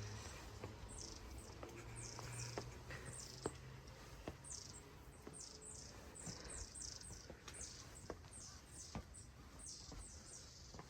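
Small birds chirping: many short, high notes that each slide quickly downward, coming in quick runs through the whole stretch. Faint scattered clicks and taps come in between, and a low hum fades out after the first few seconds.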